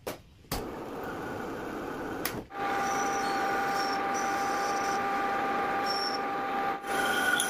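Metal lathe cutting a metal workpiece: a few clicks at the start, then the running lathe and the tool's scraping cut with a steady whine. The sound breaks off briefly about two and a half seconds in and again near the end.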